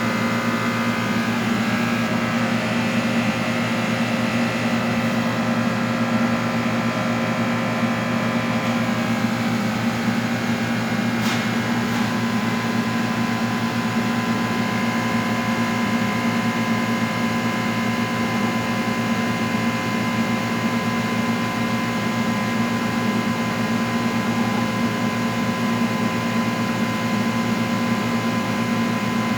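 Steady hum and buzz of high-vacuum coating equipment running, with a low drone and several steady tones above it. There is one short click about eleven seconds in.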